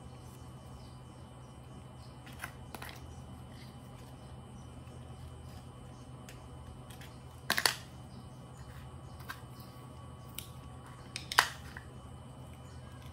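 Hard plastic toys clicking and clacking as they are handled and set down: a handful of sharp, short knocks, the loudest about halfway through and again near the end, over a steady low hum.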